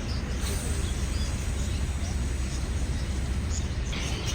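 Outdoor crowd ambience: a steady low rumble with a murmur of voices, and small birds chirping, with a burst of chirping near the end.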